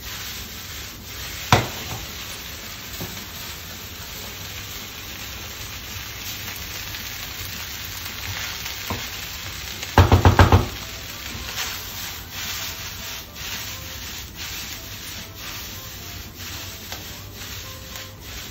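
Vegetable fried rice sizzling in a hot pan as it is tossed and stirred with a wooden spoon. A sharp knock comes about a second and a half in, and a quick run of loud knocks about ten seconds in.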